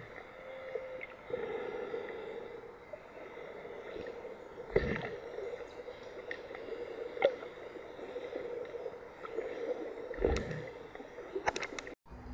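Muffled underwater sound picked up by a camera inside an underwater housing: water moving and gurgling, with a few dull knocks against the housing.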